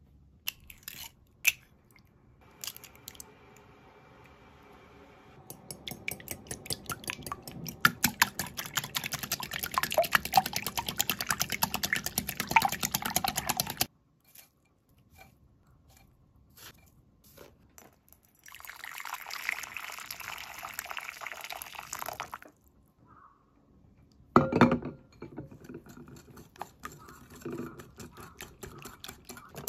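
Small wire whisk beating raw eggs and sugar in a glass bowl: rapid clinking of the wires against the glass with a wet, sloshing liquid sound. It comes in several runs with pauses between them, and there is one sharp knock about two-thirds of the way through.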